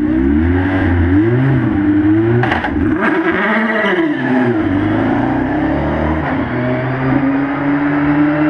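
Single-seater racing car engine revving in the pit lane. The note swings up and down for the first few seconds, then holds steady and slowly climbs.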